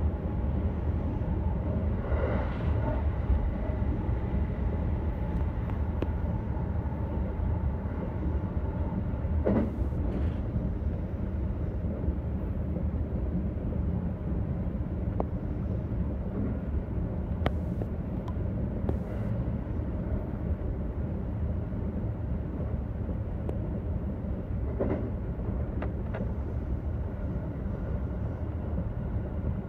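JR West 321 series electric train running steadily at speed, heard from inside the front car: a continuous rumble of wheels on rail with a few sharp clicks along the way.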